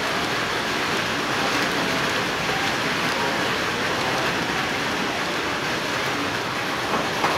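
Light rain falling with a steady, even hiss of drops. A few sharper ticks come near the end.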